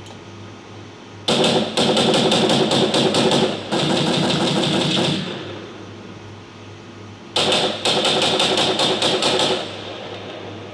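Layered machine-gun sound effects playing back: rapid automatic fire in loud bursts, two overlapping bursts starting about a second in and another about seven seconds in. One of the guns has had its bass removed so that it sounds further away.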